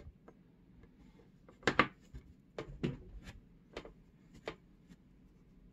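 Steel scalpel blade cutting through a roll of epoxy putty and tapping on a cutting mat. About seven short, sharp clicks come at irregular intervals, and the loudest pair falls near the start.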